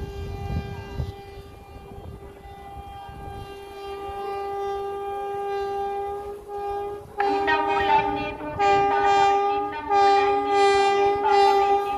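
Air horn of an approaching Indian Railways WAP-4 electric locomotive: one long steady blast, then from about seven seconds in a louder run of about five short blasts sounding a chord of several notes.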